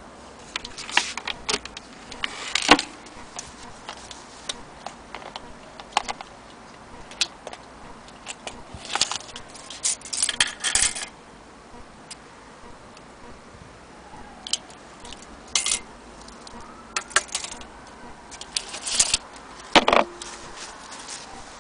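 Irregular metallic clinks and short jangling rattles, sharp knocks scattered a few seconds apart, as the metal parts of an antique cuckoo clock are handled.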